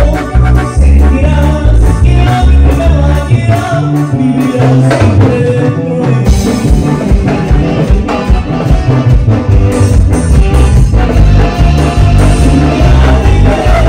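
Live band playing Latin dance music, with a heavy bass and rhythm section under melody lines. The bass drops out briefly about four and a half seconds in and comes back in a second and a half later.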